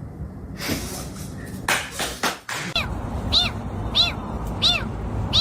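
A cat mewing in short, high, arching calls that repeat about every two-thirds of a second, starting about halfway through, after a few seconds of noisy rustling.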